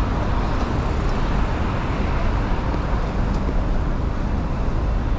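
Steady city street traffic noise: the continuous hum of passing road vehicles.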